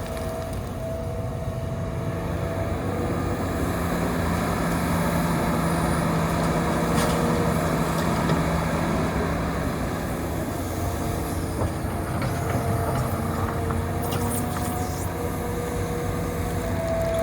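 Hitachi Zaxis 350 excavator's diesel engine and hydraulics working under load. A steady hum grows louder for several seconds in the middle, with a higher whine that comes and goes.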